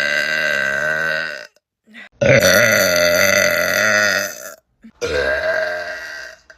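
A person burping: three long, drawn-out belches in a row with short gaps between them. The first trails off about a second and a half in, the second lasts over two seconds, and the third comes near the end.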